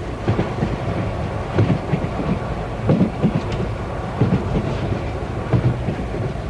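Passenger train running, heard from inside the carriage: a steady low rumble with the clack of the wheels over rail joints coming now and then.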